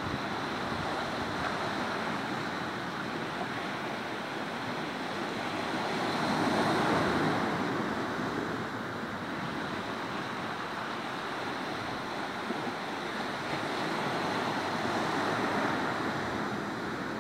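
Sea waves washing onto a rocky shore, a steady rushing surf that swells louder about a third of the way in and again near the end, with wind buffeting the microphone.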